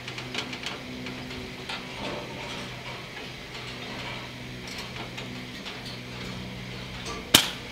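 Faint scattered clicks over a low steady hum, then near the end a single sharp report from a Daystate Delta Wolf PCP air rifle fitted with a SUMO suppressor.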